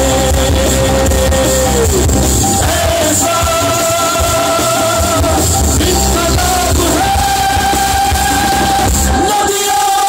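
Live band music: a singer holds long, drawn-out notes over bass, drum kit, electric guitar and tabla. The low end drops away briefly near the end.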